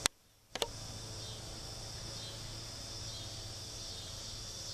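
Steady, high-pitched chorus of insects such as crickets. Right at the start it is broken by a sharp click, about half a second of silence and a second click.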